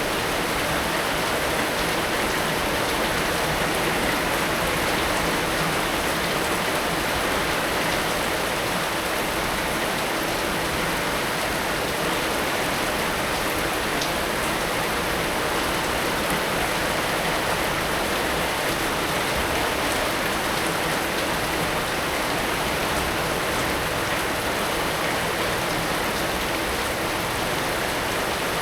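Heavy rain falling in a steady, dense hiss, with raindrops pattering on surfaces.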